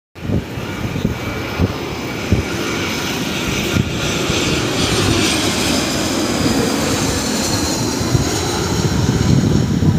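Jet engine noise from an Airbus A320's twin turbofans on landing approach: a steady roar with a rising hiss, growing slightly louder as the airliner comes closer.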